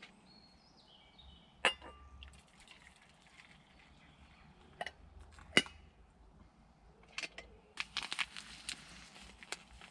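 Sharp metallic clinks of an aluminium camping kettle and pot being handled on a Trangia stove, the two loudest about four seconds apart. Near the end comes a run of crinkling from a sachet of instant mash being opened. In the first second a bird gives a short falling call.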